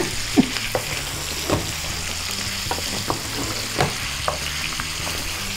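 Chicken livers and bacon sizzling in butter in a frying pan over high heat. A wooden spoon stirs them, scraping and tapping the pan about once a second.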